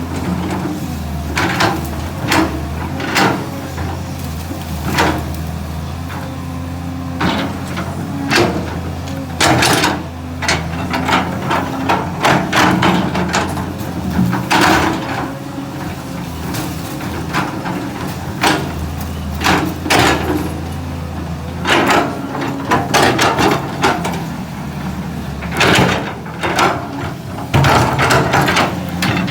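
A 320 excavator's diesel engine running under load while it prises out eucalyptus stumps, with many irregular sharp cracks, knocks and clanks from the bucket and the splitting wood and roots.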